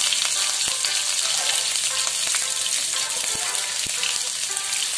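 Garlic and sliced onion sizzling in hot oil in a wok: a steady hiss with scattered crackles and a few light clicks.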